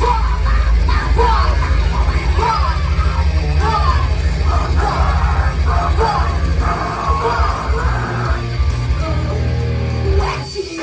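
Loud rock music with shouted, sung vocals over a heavy bass line; it cuts out briefly near the end.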